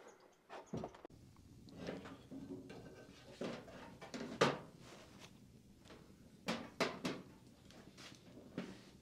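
Knocks and clunks of a tin reflector oven being handled and set before an open hearth fire, with the loudest knock about halfway through and a few more near the end.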